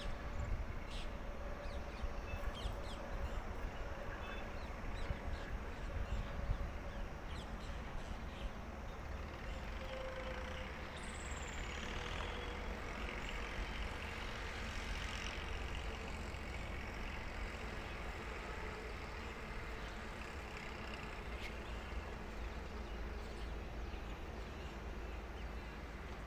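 Steady low outdoor rumble with a faint hum that slowly sinks in pitch. A few short, high bird chirps come in the first seven seconds or so, and one brief falling high note about eleven seconds in.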